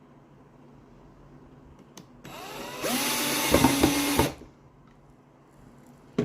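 Power drill driving a screw to fasten a piano hinge: the motor spins up with a rising whine, runs steadily for about a second and a half with a few knocks as the screw seats, then stops.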